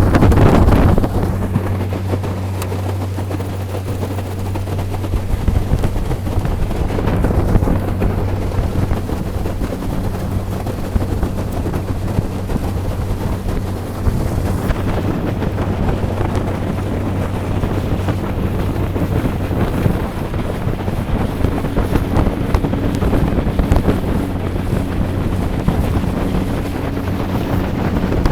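Small aluminium boat's outboard motor running at a steady cruising speed, a constant low hum, with wind buffeting the microphone.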